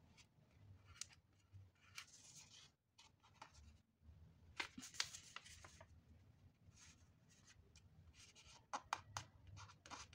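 Faint rustling and crinkling of a sheet of origami paper being folded and creased by hand, with sharper crackles about halfway through and again near the end.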